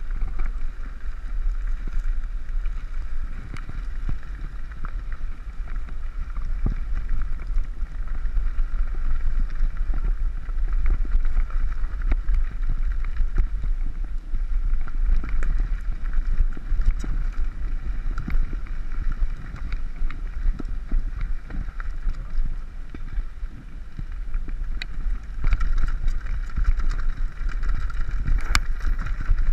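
Wind rumbling over a helmet-mounted camera as a mountain bike rides down a gravel trail, with the bike rattling and clicking over the rough ground.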